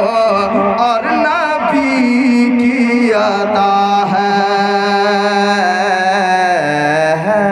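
A man singing a naat into a microphone, drawing the words out into long held notes with wavering ornaments. The melody steps down in pitch about six and a half seconds in.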